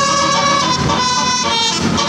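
Tour bus telolet horn playing a tune of steady tones that step from pitch to pitch, with bus engine and road noise rising underneath about halfway through.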